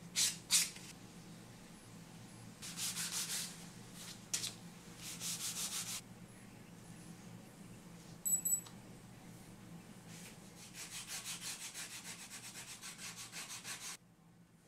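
A sanding stick rubbed back and forth along the stacked edges of vegetable-tanned leather card slots, smoothing the edges. It comes in several runs of quick scratchy strokes, the longest near the end at about four to five strokes a second, with a short light clink about eight seconds in.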